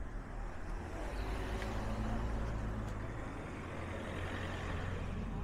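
Cars driving slowly past at close range, one after the other: a low engine hum and tyre noise that swells about a second in and is loudest around two seconds.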